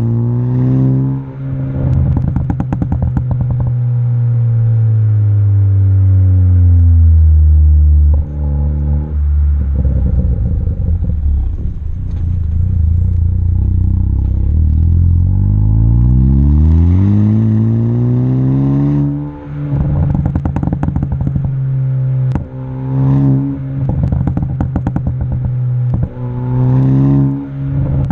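Ford Focus ST engine with an MBRP cat-back exhaust and a pops-and-crackles tune, revved up and down in long sweeps and short blips. Bursts of popping and crackling come from the exhaust as the revs drop off, about a second in and again through the last third.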